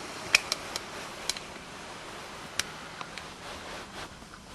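Scattered light clicks and taps, several in the first second or so and a few more around the middle, over a steady faint hiss.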